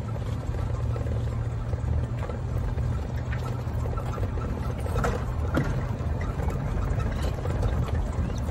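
Golf cart on the move: a steady low rumble with a few light clicks and rattles.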